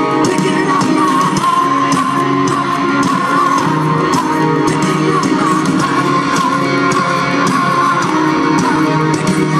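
Live rock band playing an instrumental passage: electric guitar and bass over drums, with a wavering, sliding violin melody on top.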